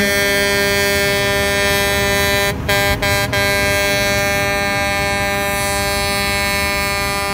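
Semi-truck air horn blowing one long held blast, cut by a few brief breaks around the middle.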